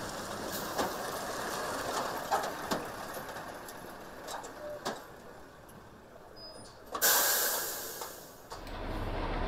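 Military KamAZ truck moving slowly on a gravel road, tyres crunching and the body rattling, with scattered clicks and knocks. About seven seconds in comes a loud hiss of air from the truck's air brakes, fading over a second. Near the end a steady low hum takes over.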